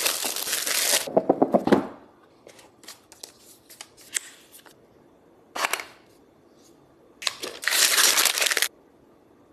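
Packaging being handled and torn open while unboxing a tablet: several loud bursts of tearing and rustling, a quick run of sharp crackles, and scattered small clicks and taps between them.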